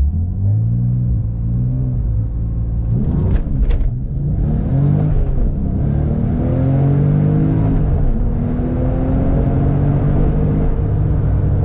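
Porsche 997 Turbo's twin-turbo flat-six, fitted with an aftermarket FAB intake and exhaust, accelerating hard from a standstill under full throttle, heard from the cabin. The engine note climbs in pitch through each gear and drops at two gear changes of the manual gearbox, with a few sharp clicks at the first shift.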